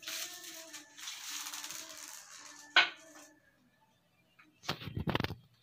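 Close rustling with a sharp click about three seconds in, then a short burst of knocks and scuffs near the end.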